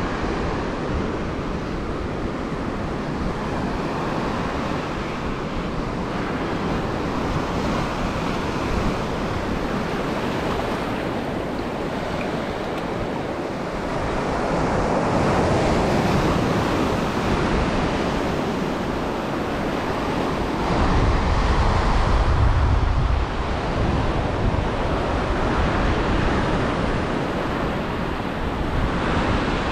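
Ocean surf breaking and washing up the sand, with wind rumbling on the microphone. The wash swells louder about halfway through and again later, when the wind rumble is strongest.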